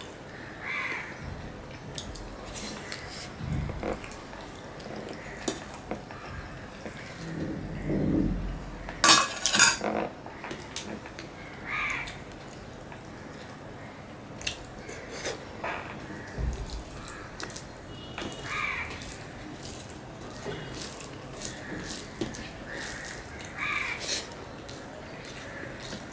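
Eating by hand from a stainless steel plate: soft chewing and rice-handling sounds with scattered light clicks, and a loud run of metallic clinks about nine seconds in as a small steel bowl knocks against the plate.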